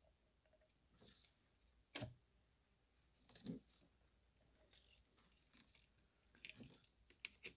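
Faint handling noises as a BMW N42/N46 Valvetronic assembly is eased out of the cylinder head: a few short, quiet knocks and scrapes of metal parts, spaced a second or more apart, with a small cluster near the end.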